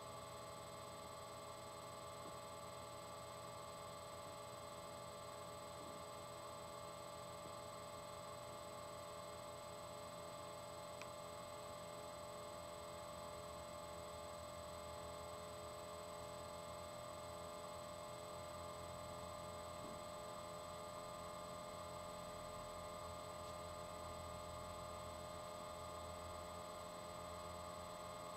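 A faint, steady electrical hum: several constant tones over a low hiss, with nothing else happening.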